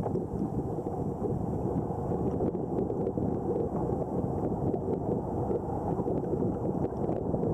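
Wind buffeting the microphone, a low, fluttering rumble.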